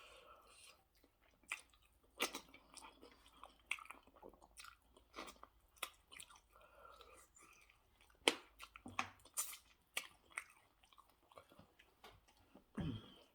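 A person chewing food close to the microphone: irregular wet mouth clicks and chewing noises, with a short louder throaty sound near the end.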